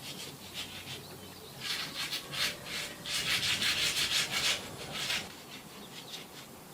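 Quick rubbing or scraping strokes on a hard surface, like hand sanding, about four a second. They start about two seconds in and stop about five seconds in.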